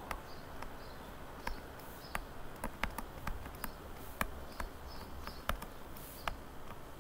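Stylus tapping and clicking on a tablet screen while words are handwritten: irregular sharp taps, a few each second.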